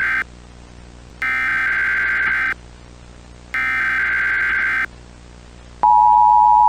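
Emergency Alert System header: the end of one SAME data burst, then two more buzzy digital bursts, each about a second and a half long and about a second apart. About six seconds in, the steady two-tone EAS attention signal starts and holds.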